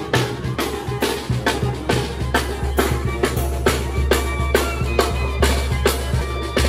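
Live banda music: snare and bass drum strike a steady beat about twice a second under a low sousaphone bass line. Brass notes join above the bass from about halfway through.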